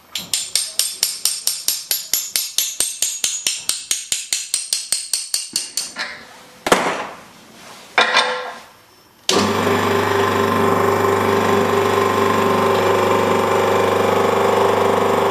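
A quick run of clicks, about five a second, then two sharp knocks. About nine seconds in, the hydraulic workshop press's pump starts and runs with a steady hum as the interference-fit connecting-rod bolts are pressed home.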